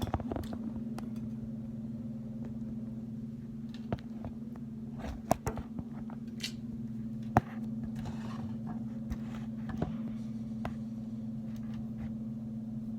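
Scissors snipping at the lace of a wig, a few scattered sharp snips and handling clicks over a steady low hum.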